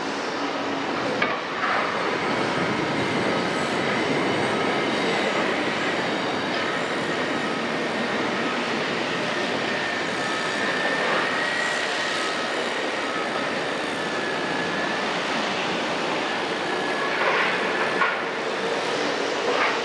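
A 1960 Demag harbour crane working on its gantry: steady machinery noise with a faint, wavering high whine. A few metallic clanks, two about a second and a half in and two more near the end.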